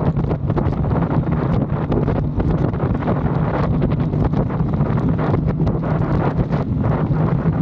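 Aprilia Tuono 660 Factory's parallel-twin engine running at a steady speed on the move, under heavy wind noise on the microphone.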